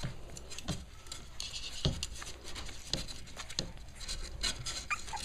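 Cavalier King Charles Spaniel puppies scuffling and scrabbling on a rug close to the microphone: scattered light taps and scratching.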